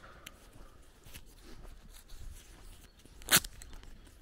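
Footsteps on a dirt path with small scuffs and clicks, and one loud sharp click a little past three seconds in.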